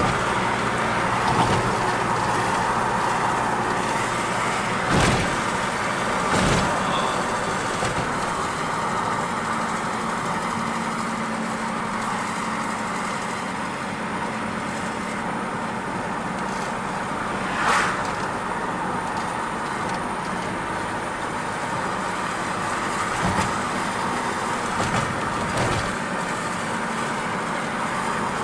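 Car driving along the road: steady engine and tyre noise, with a few brief knocks scattered through it.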